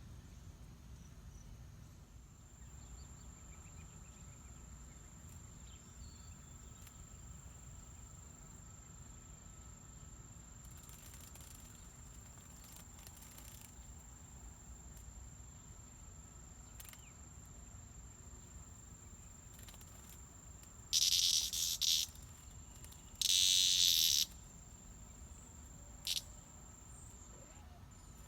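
Cicada buzzing: two loud, high-pitched bursts of about a second each, close together near the end, over a steady thin high whine.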